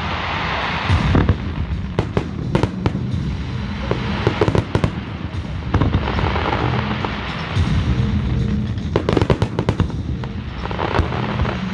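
Aerial firework shells bursting one after another: a rapid string of sharp bangs, with patches of crackling from glittering stars every few seconds.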